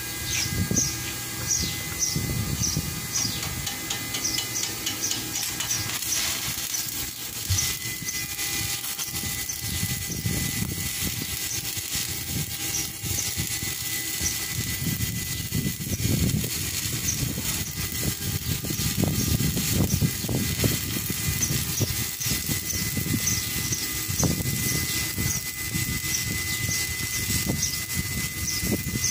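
Stick welding arc crackling and sizzling steadily as an electrode is run along a steel truck step.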